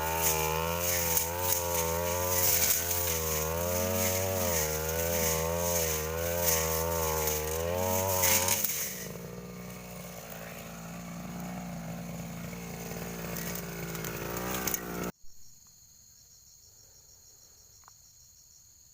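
Stihl two-stroke brushcutter engine running at high revs, its pitch wavering up and down as the blade works through the brush. About nine seconds in it drops to a lower, steadier run, then the sound cuts off suddenly, leaving faint insects chirring.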